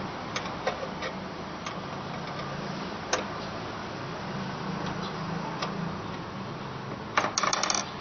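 Scattered light clicks and taps from handling small parts of an electric fan during disassembly, then a quick cluster of rapid clicks near the end, over a steady low hum.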